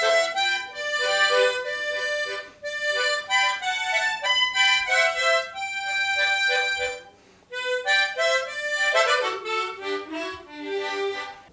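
Solo harmonica playing a melody of held notes and chords in short phrases, with a brief break about seven seconds in.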